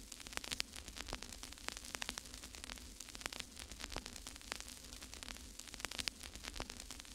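Faint crackling static, a dense run of irregular clicks and pops over a steady low hum.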